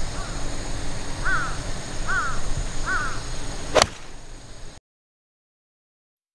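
A crow caws three times, about a second apart. Then a 4-iron strikes a golf ball off the tee with one sharp crack near four seconds in, and the sound cuts out abruptly.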